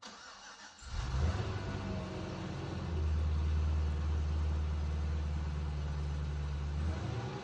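A 2011 Cadillac CTS-V's supercharged 6.2-litre V8 running through a Borla exhaust. It comes in about a second in and holds a steady low note.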